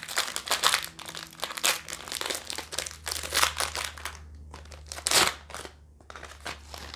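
Plastic trading-card pack wrapper crinkling in the hands, dense crackling for about four seconds, then a few sparser crackles with one louder one about five seconds in.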